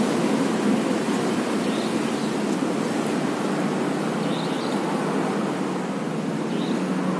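Steady road traffic noise: a continuous rushing hiss with a low engine hum underneath.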